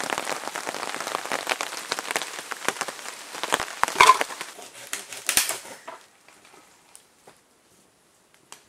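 Heavy rain pattering densely on leaves and rain gear, with a loud clatter of wooden firewood sticks knocking together about four seconds in and another knock a second later. Around six seconds in the rain stops abruptly, leaving near quiet with a few faint ticks.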